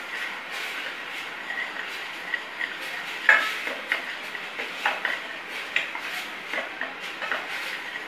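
Steel ladle scraping and clinking against a stainless steel kadai while stirring a thick rasam paste frying in oil, in irregular strokes, the loudest clink about three seconds in.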